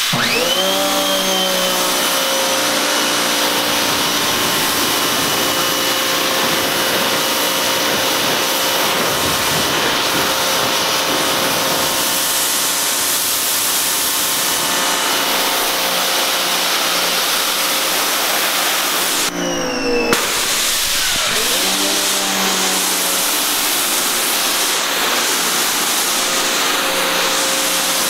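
Giraffe Tools Grandfall wall-mounted electric pressure washer running as water blasts through a 40-degree nozzle: a steady motor whine over the hiss of the spray. Its pitch rises as the motor kicks on at the trigger. About two-thirds of the way through it cuts out for about a second and spins back up with a rising whine, as the machine only runs while the trigger is held.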